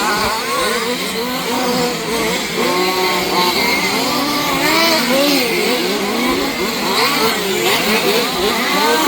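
Several 1/5-scale two-stroke petrol RC off-road cars racing at once, their small engines revving up and down over one another.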